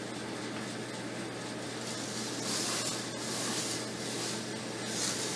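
CoasterDynamix model roller coaster train rolling along its tubular track, a steady rushing hiss that swells twice, over a faint steady low hum.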